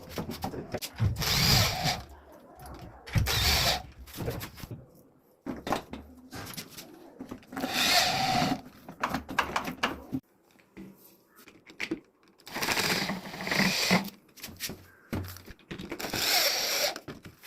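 Power drill running in short bursts, about five times, with short pauses between them.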